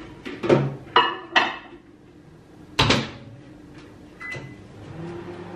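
A dish clatters three times, then a microwave oven door shuts with a sharp click about three seconds in. A short beep follows a second later, and the microwave starts its steady hum near the end as it begins heating.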